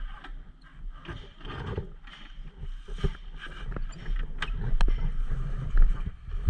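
Motorcycle ride noise: wind buffeting the microphone with a low rumble that swells and fades, and scattered sharp ticks, getting louder in the second half.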